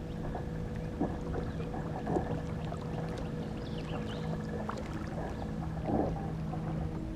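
Kayak on the water: water sloshing against the hull, with a few light knocks.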